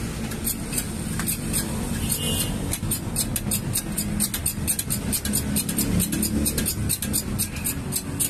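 Hand-pumped hydraulic bottle-jack press working to press a bearing on a motorcycle crankshaft: a run of short sharp clicks, a few each second, over a steady low rumble.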